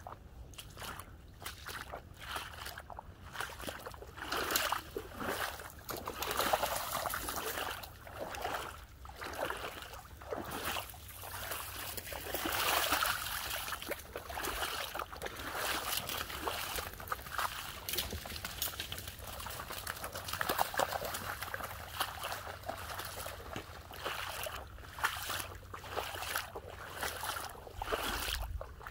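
Shallow water sloshing and trickling in irregular splashes, about one every second or so, as something wades through flooded ground.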